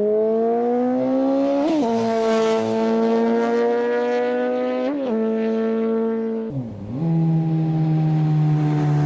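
Honda CBR929RR inline-four with a TOCE aftermarket exhaust pulling steadily up through the revs, with three quick dips and drops in pitch as it upshifts, about two seconds in, five seconds in and near the end. After the last shift it runs on at lower revs.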